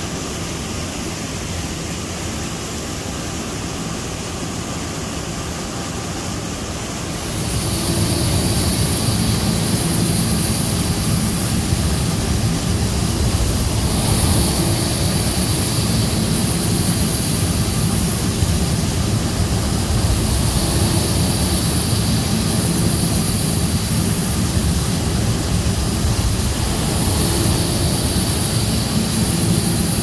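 Steady mechanical roar of running machinery. It gets noticeably louder about seven seconds in, with a faint high whine on top.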